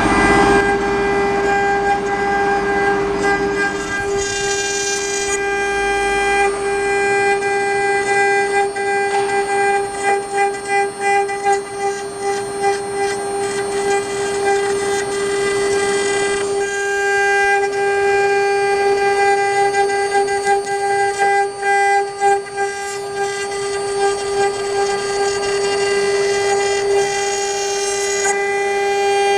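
AKM3015 CNC router's spindle running with a steady high whine while its bit carves a wooden cylinder turning on the rotary axis. A rough cutting noise rises and falls under the whine, most unevenly through the middle.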